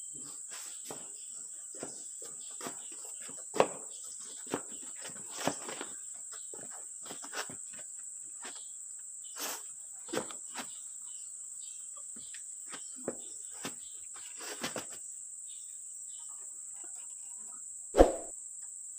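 Steady high-pitched insect drone, like crickets, with scattered metallic clinks and knocks from handling the cylinder head of a Perkins 4.236 diesel engine, and one louder knock near the end.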